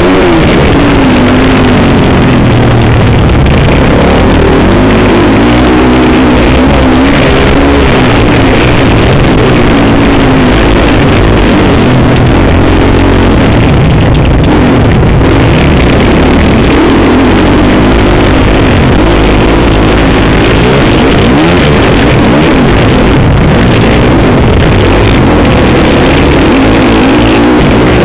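Dirt bike engine racing, its pitch rising and falling again and again as the rider works the throttle through the turns. Picked up very loud and close by a camera mounted on the bike's handlebars.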